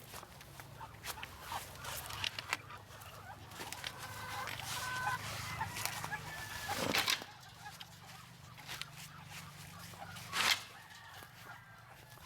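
Chickens clucking with short calls, and two louder sharp sounds, one about halfway through and one near the end, over a steady low hum.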